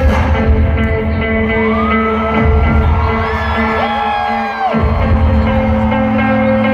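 Live indie band music at festival volume, heard from within the crowd: electric guitar with bass and drums, and whoops rising from the audience. The low end drops out briefly near the middle before coming back.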